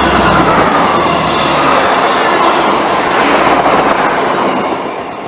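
Diesel multiple unit passing close at speed: a loud rush of wheels on rail, with a tone that drops in pitch as it goes by. It fades away near the end.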